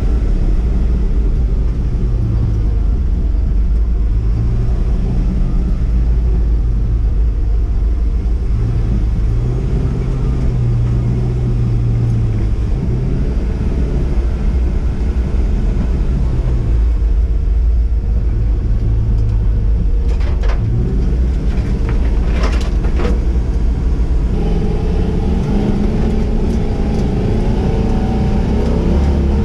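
Lifted Chevy square-body 4x4's swapped-in 6.0 LS V8 running under load while the truck drives off-road, its note rising and falling with the throttle. A few sharp knocks come about two-thirds of the way through, and the engine note rises near the end.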